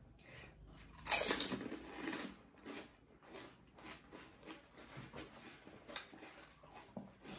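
A loud crunch as a crisp fried panipuri shell is bitten about a second in, followed by a run of crunchy chewing strokes, about two or three a second.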